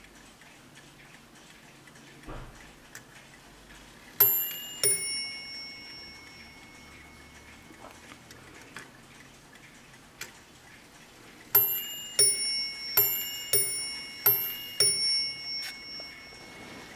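Warmink pillar mantel clock striking on its two bells as the minute hand is turned: one high-then-low ding-dong for the half hour about four seconds in, then three ding-dong pairs for three o'clock starting about halfway, each stroke ringing on.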